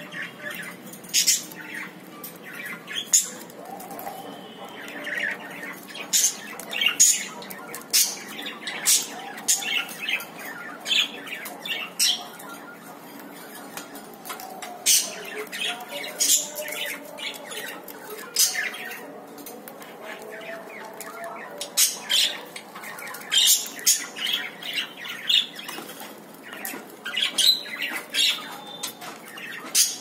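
Cockatiels bathing in a shallow plastic tub of water, flapping their wings and splashing in short spurts, with sharp squawks and chirps scattered throughout.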